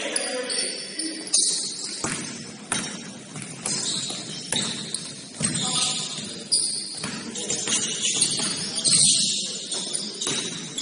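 Basketball bouncing on a gym court in irregular thuds during play, with players' voices calling out around it.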